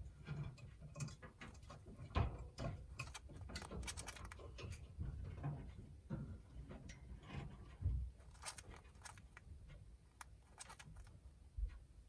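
Lutino cockatiel grinding its beak as it drowses: soft, irregular clicking and scraping, the sign of a content bird settling down to sleep. A couple of low bumps break in.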